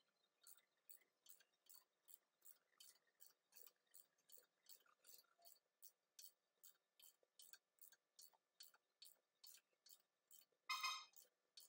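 Hand ratchet wrench clicking steadily, about three clicks a second, as a nut under the front steering knuckle is turned. Near the end there is one louder, briefly ringing metallic clink.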